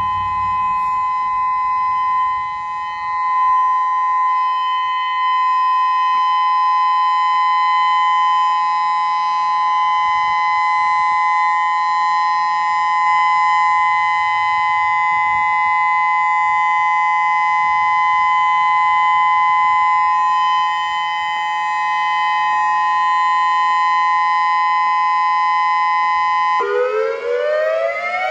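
Federal Signal Modulator 6048 electronic outdoor warning siren sounding its steady alert tone: one loud, unwavering chord. Near the end it switches abruptly to the wail, its pitch rising.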